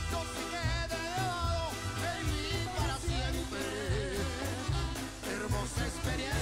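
Live banda music playing: a melody line that wavers in pitch, over a steady bass and regular drum hits.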